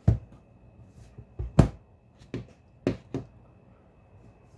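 Metal spoon knocking against a plastic measuring jug as powdered sugar is spooned in. There are about six short, sharp taps, the loudest at the start and about one and a half seconds in.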